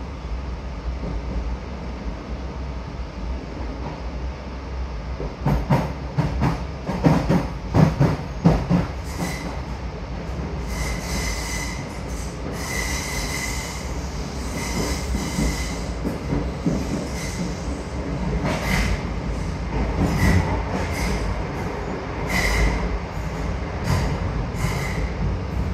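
DART 8510 class electric train running, heard from inside the carriage: a steady low rumble, with a run of sharp clatters from the wheels a few seconds in. After that come repeated short, high-pitched wheel squeals.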